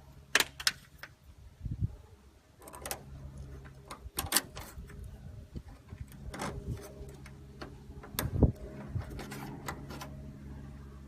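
Irregular sharp clicks and light knocks of parts being handled by hand, with a steady low hum underneath.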